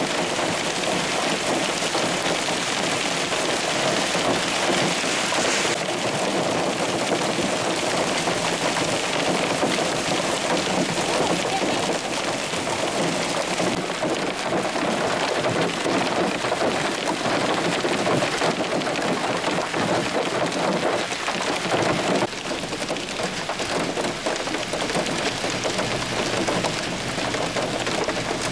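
Hail and heavy rain pelting down in a dense, steady hiss, with hailstones up to about 1.25 inches across striking pavement and shingle roofs. The level dips slightly about two-thirds of the way through.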